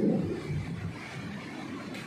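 Distant thunder rumbling, a deep low roll that fades away over about the first second.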